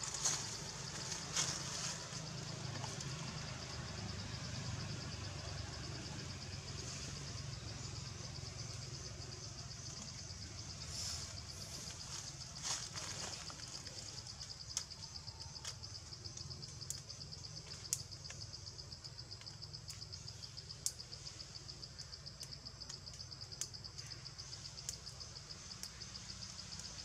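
A steady high-pitched insect chorus with a fast pulsing buzz, over a low steady rumble, with scattered sharp ticks in the second half.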